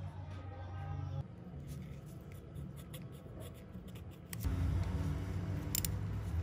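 Light scraping and small clicks of hand tools on metal as a feeler gauge and wrench work the valve adjuster of a Honda Monkey's engine. A louder low rumble comes in about four and a half seconds in.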